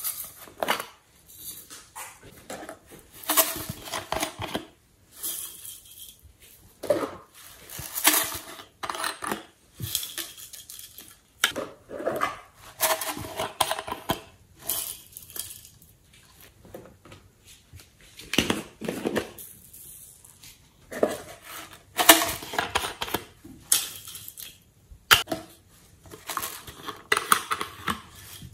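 Plastic squeeze bottles being handled and squeezed over a glass tray, in irregular bursts of crackling, clicking and tapping every second or two.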